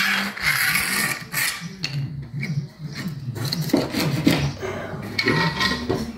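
Pencil scratching on a concrete screed floor along the edge of a spirit level, drawing a marking line in a series of short strokes.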